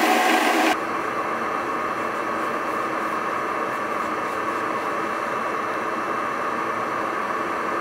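Belt grinder grinding a small steel ring, cut off suddenly under a second in. It is followed by a steady machine hum and hiss with no rhythm.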